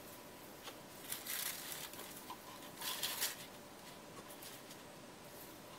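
Thin tissue paper rustling in two short bursts as leftover gold leaf is tucked back between the interleaving sheets of its packet.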